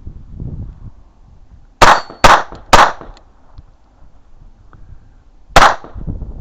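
.22 rimfire gunshots: three in quick succession about two seconds in and a fourth near the end, with faint clanks of bullets striking steel targets.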